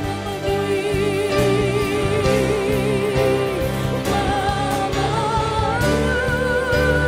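Live Christian worship song: singers holding long notes with vibrato over band accompaniment, the melody stepping up about four seconds in and again near six.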